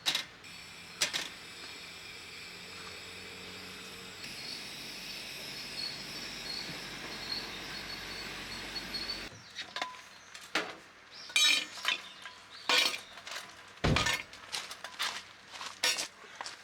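Steady outdoor background with a faint high insect trill for the first nine seconds or so. Then a series of sharp clinks and knocks of hard objects being handled, with one heavier thump about fourteen seconds in.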